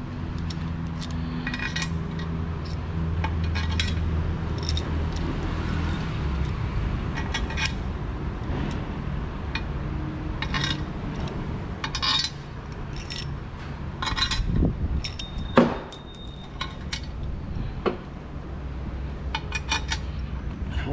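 Loose metal screws of assorted sizes clinking and rattling as they are picked up and handled, a scatter of separate clinks with a sharper one about two thirds of the way through. A low steady hum runs under the first six seconds or so.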